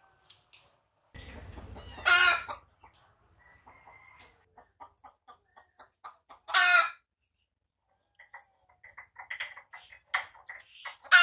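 Domestic chickens clucking, with three short, loud squawking calls about two seconds in, about six seconds in and near the end. Between the calls come runs of short, quick clucks.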